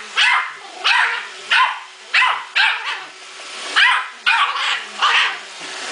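Yorkshire terrier barking at a Roomba robot vacuum: a run of about nine sharp, high-pitched barks, one or two a second.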